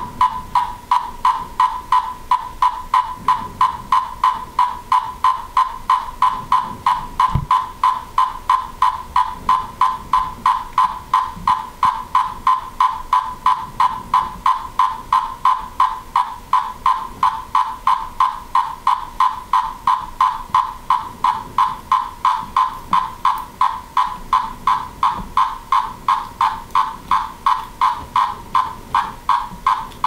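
Male Magicicada tredecim periodical cicada giving the staccato stage 3 courtship call: an even train of low, buzzy pulses, about two to three a second. This is the final stage of courtship, given as the male closes on and mounts the female.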